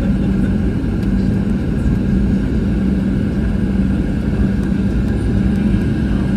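Cabin noise inside a Boeing 737-700 airliner: a steady drone of its CFM56-7 turbofan engines and airflow, with a constant low hum running through it.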